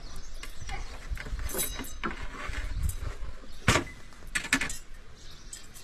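Long thin wooden rolling pin knocking and rolling on a board as flatbread dough is rolled out: a series of sharp wooden clacks, the loudest about three and a half seconds in, over a low rumble.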